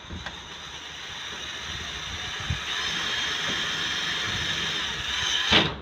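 Cordless drill running steadily with a high whine as it bores into an aluminium door frame, briefly louder just before it stops abruptly near the end.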